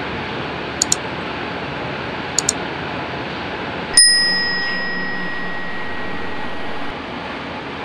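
Subscribe-reminder sound effects: two quick double mouse clicks, then a bright notification-bell ding about four seconds in that rings out for about three seconds, over a steady background hum of engines and noise.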